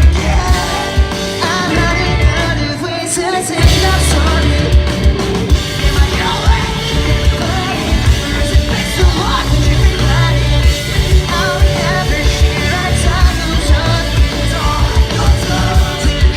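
Rock band playing loud, with drums, bass and a singer. The low end drops out for about a second, around three seconds in, then the full band comes back in.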